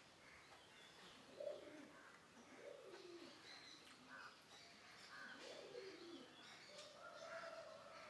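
Faint birdsong: several birds calling, with a few short low calls that slide down in pitch, a longer level call near the end, and scattered higher chirps.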